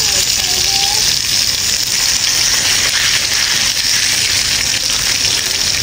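Patties frying in oil on a flat griddle (tawa), sizzling steadily.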